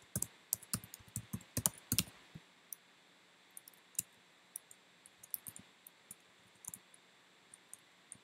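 Typing on a computer keyboard: a quick run of keystrokes in the first two seconds or so, then scattered single key clicks.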